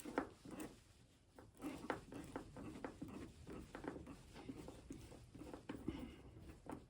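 Faint, irregular small clicks and scrapes of a hand tool working in small screw heads as the screws holding a motorcycle fuel filler cap are turned out and handled.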